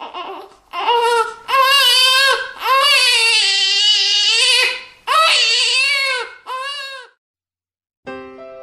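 Newborn baby crying: a run of long, high wails, each rising and falling, that stops about seven seconds in.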